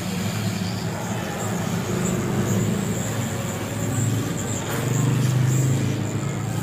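Hot-air rework gun blowing steadily onto an IC on an LED TV panel board, heating its solder so the chip can be lifted off, with a thin high whine over the rush of air.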